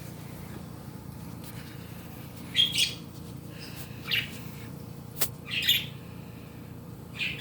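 Pet bird giving short, high chirps every second or two, starting a couple of seconds in, with one sharp click about five seconds in.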